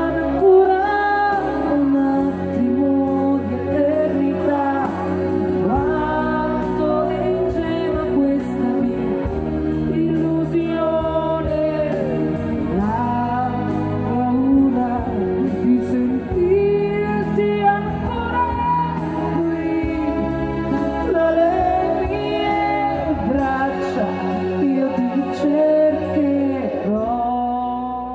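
A woman singing a pop ballad live with a band of keyboard and guitar, her voice gliding and holding long notes over the accompaniment.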